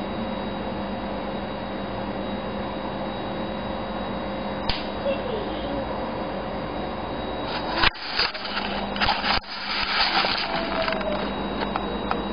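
Steady background hiss and hum, with a single click about four and a half seconds in. From about 8 to 11 seconds, rustling and knocking handling noise with two brief dropouts, as the camera is moved.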